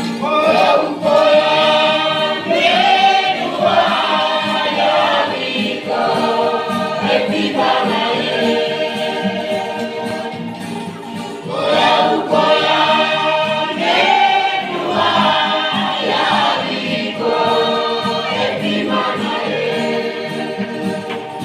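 Youth choir singing a gospel hymn in the Mee language, voices together in long sung phrases.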